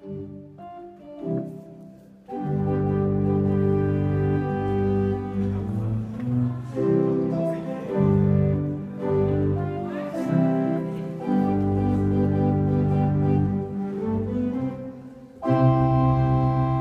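Pipe organ playing a tune in sustained chords over a low bass line. It starts softly, grows much louder about two seconds in, dips near the end and comes back with a loud full chord.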